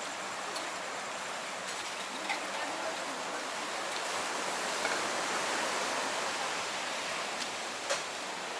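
Steady rushing of ocean surf breaking on a beach, swelling slowly toward the middle and easing off again, with a few faint clicks.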